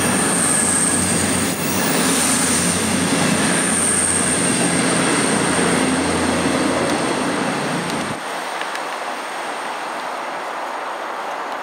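Train passing along the track, a steady rumble of wheels on rail with a thin high wheel squeal over it. The low rumble drops away suddenly about eight seconds in as the train clears, leaving a quieter hiss.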